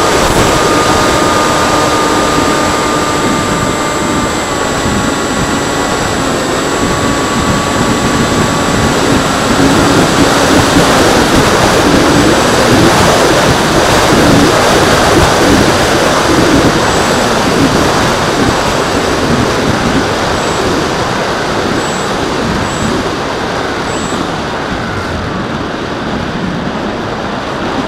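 Freewing Seagull RC plane's motor whining at a steady pitch that steps down a few times in the first several seconds, under a loud, fluttering rush of wind.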